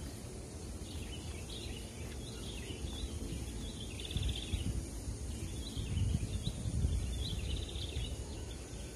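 Birds chirping and calling repeatedly, short calls and quick trills, over a steady outdoor background. A low rumble underneath swells about six to seven seconds in.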